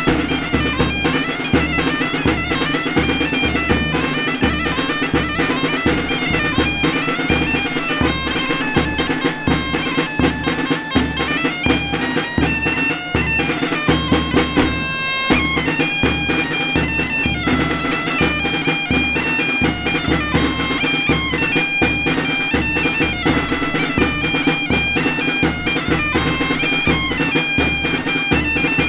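Traditional folk music: a reed pipe plays a melody over a steady drone, with a drum beating a regular pulse underneath.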